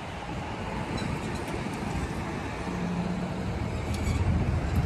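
Road traffic going by: a steady low rumble of passing vehicles, with one engine's drone swelling briefly about halfway through and the rumble growing a little louder near the end.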